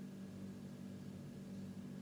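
Quiet room tone: a faint, steady low hum with light hiss.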